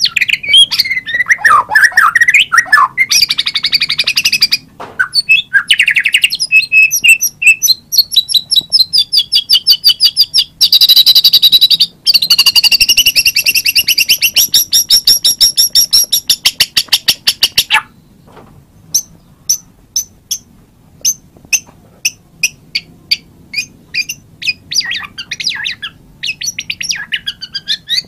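White-rumped shama singing loudly: varied whistled phrases and long runs of fast repeated notes, which break off about two-thirds through into a string of sharp single ticks about two a second, before whistled song picks up again near the end.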